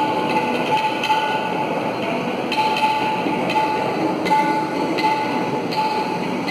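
Shehnai playing long held notes, accompanied by tabla and harmonium, in a Hindustani classical performance.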